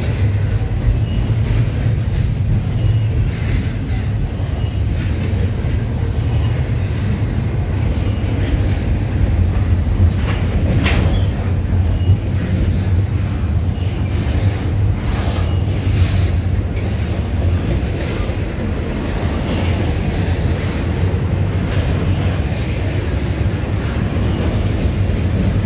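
Double-stack container freight cars rolling steadily past, a continuous low rumble with the wheels clicking and knocking over rail joints.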